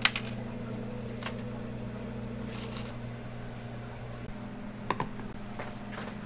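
Steady low mechanical hum with a few sharp clicks and knocks of utensils and dishes; the loudest click comes right at the start. A short soft rustle comes about two and a half seconds in, and a pair of clicks about five seconds in.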